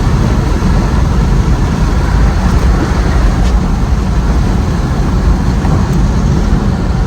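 Wind rushing and buffeting through the open windows of a moving car, heavy and low, with the car's road and running noise underneath.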